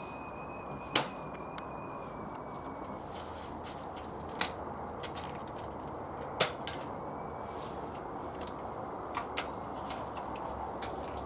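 Air rifles firing on a range: three sharp, short shots about a second, four and a half seconds and six and a half seconds in, then two fainter clicks close together near the end, over a steady outdoor hiss.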